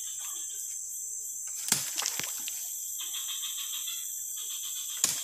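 Steady high-pitched drone of forest insects, with two sharp machete chops into a woody vine, one about two seconds in and one near the end.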